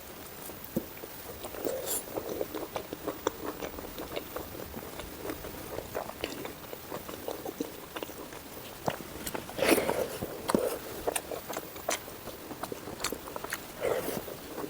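Close-miked eating sounds: chewing and biting, with a steady run of small wet mouth clicks and smacks and a few louder bites about ten seconds in and near the end.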